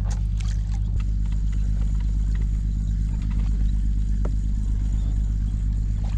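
Steady low drone of an engine running at constant speed, with a few faint ticks.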